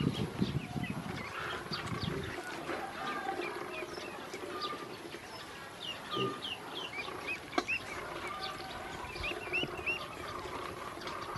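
Ducklings peeping in a string of short high chirps. There is a low rumble in the first two seconds and a single sharp tap about seven and a half seconds in.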